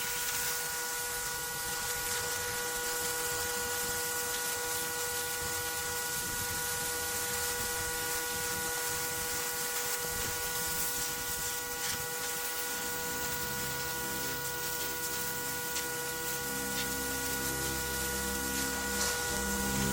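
Pressure washer running steadily, its water spray hissing over a steady whine. A low pulsing sound joins about two-thirds of the way through.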